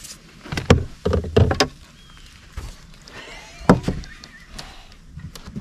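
A few loud knocks and thumps on a fishing boat's deck as the anglers move about and handle gear. The strongest come about half a second in, around a second and a half, and near four seconds.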